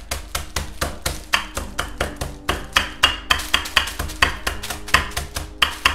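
A wooden rolling pin pounding petit-beurre butter biscuits inside a plastic bag to crush them into crumbs: a steady run of sharp knocks, about five a second, with the crunch of the breaking biscuits.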